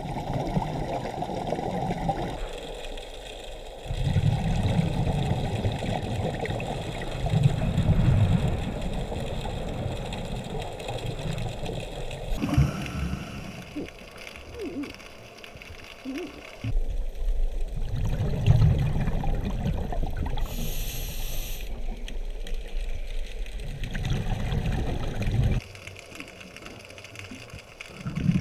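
Scuba diver's regulator breathing recorded underwater: bursts of exhaled bubbles every few seconds, with quieter stretches of hiss between breaths.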